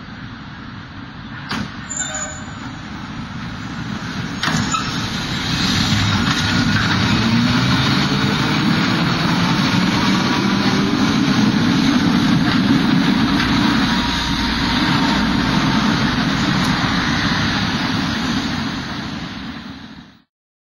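Electric street tram running close by, its noise growing louder over the first six seconds and then holding steady, with a few sharp clanks in the first five seconds. The sound stops abruptly near the end.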